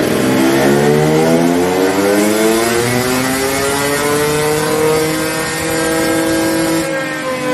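KTM 300 XC two-stroke motorcycle engine doing a dyno power run, revving up under load, its pitch rising steadily through the rev range. Near the end the pitch levels off and dips slightly.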